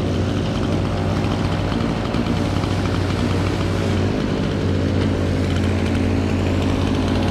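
Excavator's diesel engine running steadily at a constant speed, with a strong low hum.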